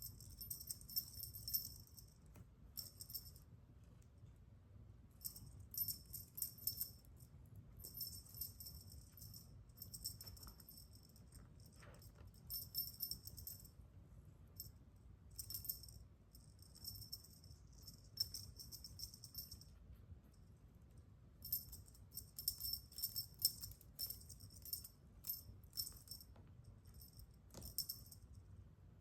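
Small bells on a shaken toy jingling in short bursts of a second or two, stopping and starting, with a longer busier stretch near the end.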